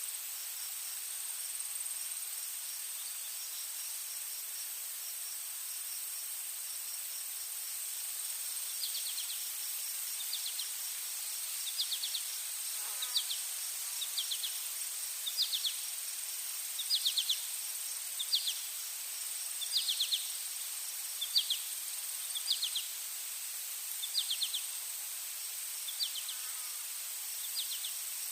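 Forest ambience of insects: a steady high-pitched drone with faint fast ticking. From about nine seconds in, short chirps of rapid pulses repeat roughly every second and a half.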